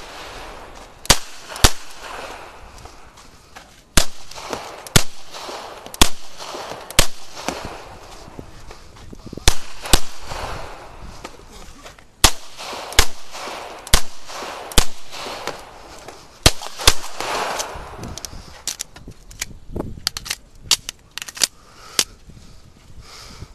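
9mm CZ Shadow 2 pistol fired in a string of sharp shots, mostly in quick pairs and short runs with pauses between. Fainter, closer-spaced shots come near the end.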